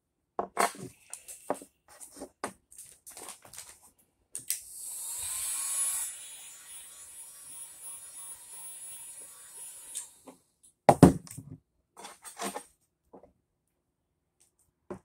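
Handheld electric heat gun blowing hot air for about six seconds, starting about four seconds in, with a faint steady whine under the rush of air. Before it come small clicks and rustles of hands working the vinyl wrap film, and about eleven seconds in there is a single loud thump.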